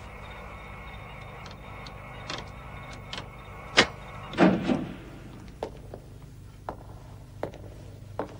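Steady electronic hum of control-room equipment, with scattered clicks from switches and controls. A sharp click comes about four seconds in, followed at once by a short half-second mechanical whirr.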